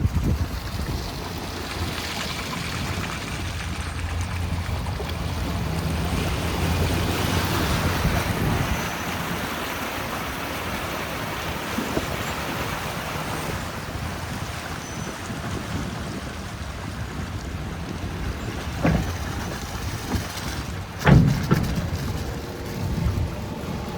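A river ferry's engine running steadily under wind on the microphone and rushing water, with a couple of sharp knocks near the end.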